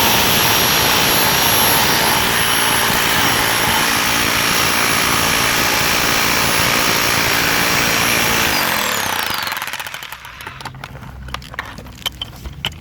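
Bauer 1641e-b rotary hammer chiselling concrete, hammering steadily at full power. About eight and a half seconds in it is let off, and its motor whine falls away as it spins down. A few light clicks and knocks follow.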